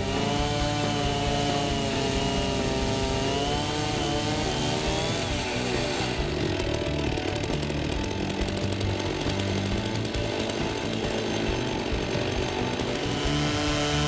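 Chainsaw mounted on a Logosol Farmer's Sawmill rising in pitch as it comes up to speed about four to six seconds in, then rip-cutting steadily along an oversized log until near the end, over background music.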